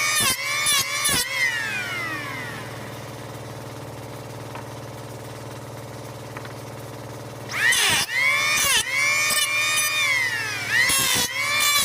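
High-speed electric power-carving tool working wood: the motor's whine sags and recovers several times in quick succession as it bites into the wood, then winds down about two seconds in. After a few seconds of steady low hum it starts up again about seven and a half seconds in, with the same repeated dips.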